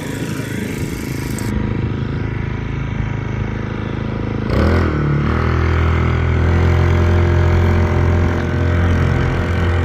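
Small Chinese four-stroke outboard motor, a Honda clone rated 4 hp, running under way. About four and a half seconds in its pitch rises and it gets louder, then holds steady.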